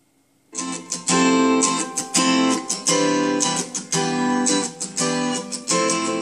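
Background music: the intro of a Korean pop song led by strummed guitar, coming in about half a second in with a steady strumming rhythm.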